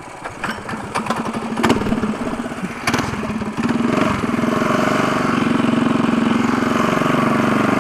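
Mini bike's small single-cylinder engine being pull-started after it stalled: a couple of sharp pulls, then it catches about three and a half seconds in and runs, revving up and down.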